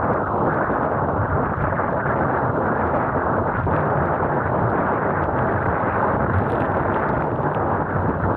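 Strong wind buffeting the camera microphone, with water rushing past the hull of a Laser 2 dinghy planing downwind. A loud, steady rushing that does not let up.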